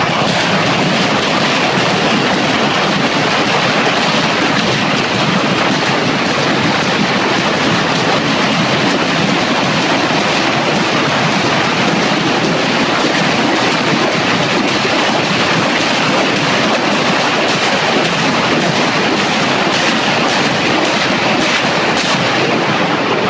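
Multiple rocket launcher firing a ripple salvo: a loud, continuous roar of rockets launching one after another for over twenty seconds, starting suddenly, with sharp cracks standing out near the end.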